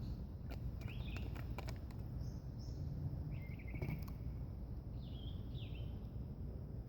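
Birds calling in woodland: a handful of short chirps and quick falling notes, over a steady low rumble. A few light clicks come about a second in and again around four seconds in.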